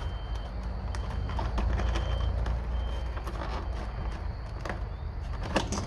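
Foam RC plane wing being fitted onto the fuselage: light rustling and clicks of foam and plastic being handled, with a sharper knock about five and a half seconds in. A steady low rumble runs underneath, and a few faint short high beeps sound in the first half.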